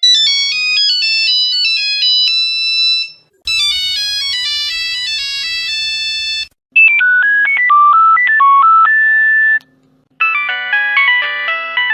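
Nokia mobile phone ringtones played one after another: four short electronic melodies of about three seconds each, with brief gaps between. Some are plain single-note tunes and others are fuller, with several notes sounding together.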